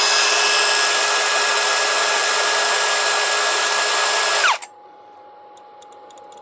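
Motor of a cordless Parkside power tool running at full speed on a repaired 20 V Performance battery with a replaced BMS, showing the battery now delivers power. The steady whine cuts out and winds down about four and a half seconds in as the trigger is released.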